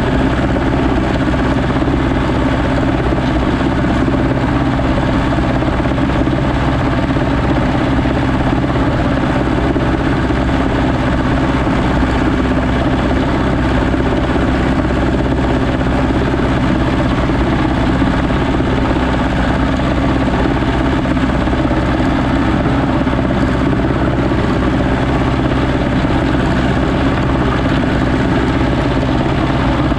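Landini Trekker 85 crawler tractor's Perkins diesel engine running steadily under load as it tows a land roller, heard close from the driver's seat. The drone is even and unchanging.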